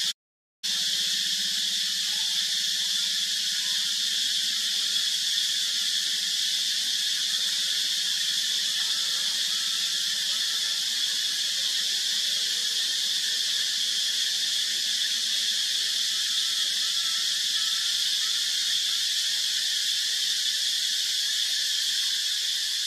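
Steady, unbroken insect chorus in the trees, an even high buzz with no rhythm. It cuts out for about half a second right at the start.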